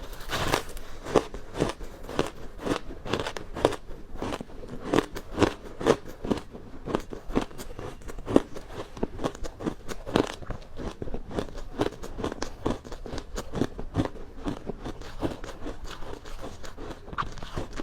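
Ice being bitten and chewed, an irregular run of sharp crunches, about three or four a second.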